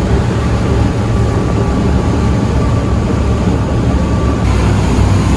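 Sea Ray Sundancer 360 cruiser under way, its inboard engine and hull giving a loud, steady, deep drone. About four seconds in the sound changes abruptly to a brighter rush of churning wake water and wind.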